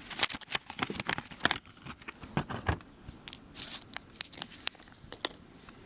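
Packaging being torn open and crinkled by hand as a knife is unwrapped: a run of irregular sharp crackles and rustles.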